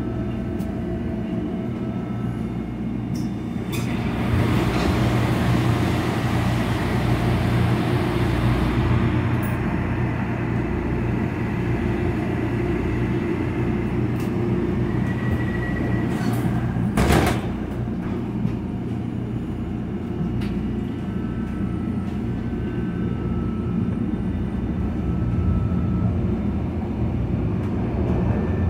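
Inside a SEPTA subway-surface trolley car running in the tunnel: a steady low rumble of motors and wheels on rail. A hissing rush comes in about four seconds in and fades after several seconds, and a single sharp knock comes about halfway through.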